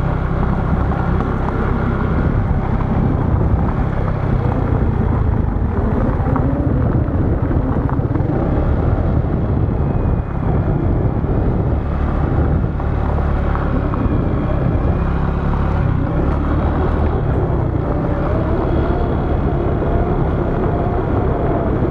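A motor vehicle running steadily while travelling along a road, a continuous low rumble with noisy haze.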